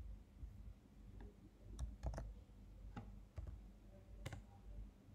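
Faint clicks of computer input, mouse and keys: about five separate clicks, two close together about two seconds in, over a low room hum.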